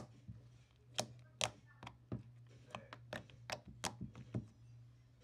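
Fingers poking and pressing into a thick, two-year-old slime, making a dozen or so sharp wet pops and clicks at irregular spacing. A steady low hum runs underneath.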